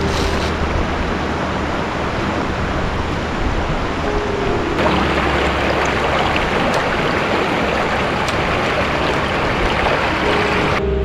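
Rushing water of a mountain stream: a loud, steady hiss of flowing water.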